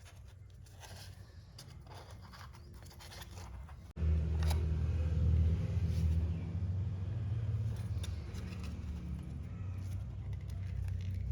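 Light scraping and handling clicks, then, after a sudden break about four seconds in, a small DC motor running with a steady low hum.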